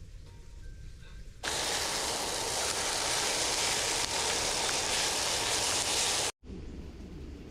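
A loud, steady rushing hiss that starts suddenly about a second and a half in and cuts off abruptly near the end, with quieter low ambient rumble before and after.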